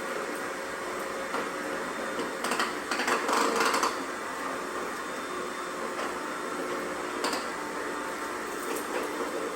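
Two small, cheap robot vacuums running, their motors and brushes giving a steady whirring hum, with a louder rattling stretch about three seconds in and a few scattered clicks.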